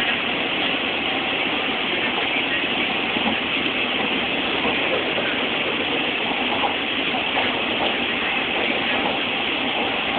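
Steady running noise of a moving train, heard from inside the carriage.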